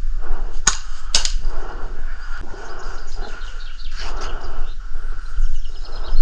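Two sharp clicks about half a second apart, roughly a second in, over steady low rumbling noise on the microphone.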